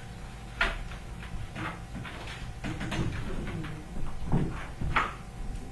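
Irregular knocks and thuds as a person gets up from the table and moves about the room. The loudest comes a little past four seconds in.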